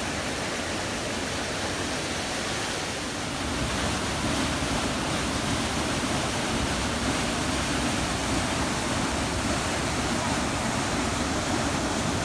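Pahanthudawa waterfall pouring, a steady rushing water noise that gets a little louder about three and a half seconds in.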